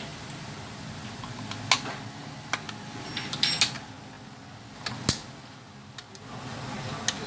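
Scattered sharp clicks and taps of small hand tools and plastic parts as a Nissan March electric door lock actuator is taken apart by hand, over a steady low hum.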